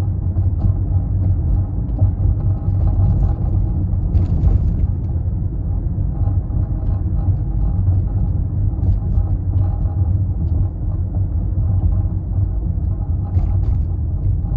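Steady low road rumble inside a Toyota Prius Prime's cabin while driving, with a few faint short clicks and ticks now and then, about 4 seconds in and near the end. These are the kind of intermittent rattle the owner is chasing.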